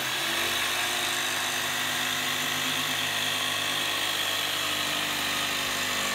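Electric jigsaw running steadily as its blade cuts through a plywood panel.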